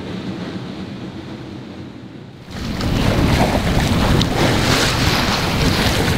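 Wind buffeting the microphone over the rush of water along a sailboat's hull while under sail, starting abruptly about two and a half seconds in.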